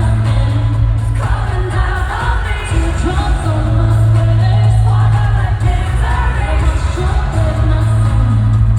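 Live pop music with a singer's vocals over a heavy bass line, played loud through a concert sound system.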